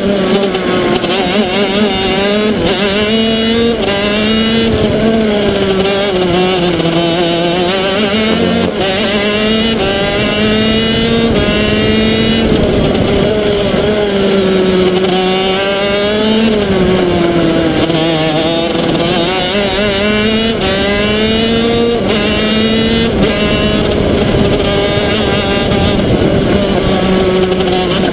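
125 cc two-stroke shifter kart engine at racing speed, heard from on board, its pitch rising and falling again and again as it accelerates, shifts gear and slows for corners.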